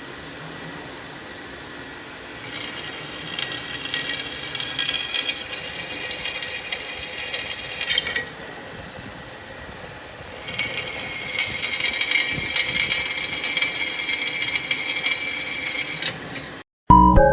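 HSS step drill bit in a power drill cutting through metal, twice, each pass about five and a half seconds, a gritty scraping with a steady high whine.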